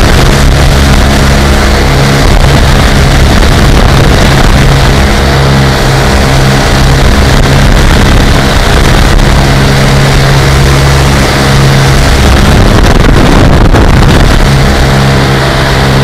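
Lazair ultralight's twin engines running steadily in flight, a loud even drone, with wind rushing over the microphone.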